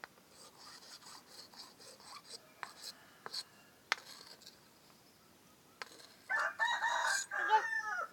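A knife blade being sharpened: a quick run of short scraping strokes over the first four seconds or so. Near the end a rooster crows once, the loudest sound.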